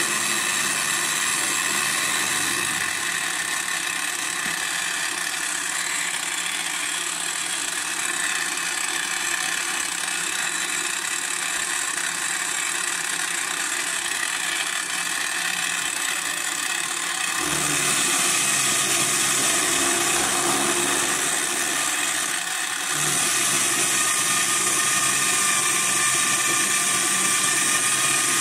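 Direct-drive pillar drill motor running steadily with an end mill, milling a metal block on an XY table. The pitch and texture of the cutting noise change about two-thirds of the way in and again a few seconds later.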